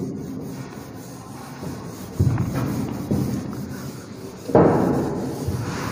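A duster being rubbed across a whiteboard in two bouts of scrubbing, one about two seconds in and a louder one starting suddenly near the end.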